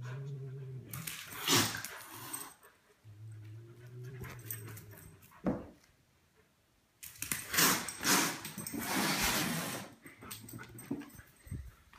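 Low, drawn-out pet growls, twice, each about two seconds long, from a cat and a German Shepherd puppy facing off. Short sharp noisy sounds fall between them, and a longer stretch of rough noise comes in the second half.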